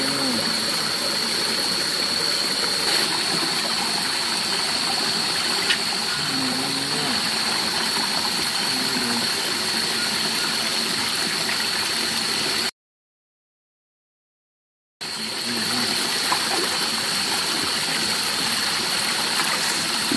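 Steady rush of a small forest stream's running water, with a steady high-pitched drone of night insects over it and a few small knocks; the sound cuts out completely for about two seconds past the middle.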